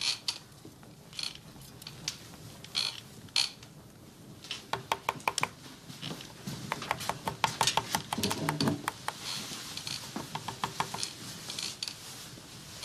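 Irregular light clicks and knocks of handling and movement in a room, thickest in the middle, with a short low creak about eight seconds in.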